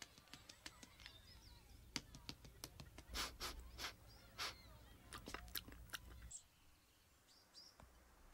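Dog eating from a food tray: faint wet smacking and licking clicks, a few louder ones midway, stopping about six seconds in. Faint birdsong chirps behind.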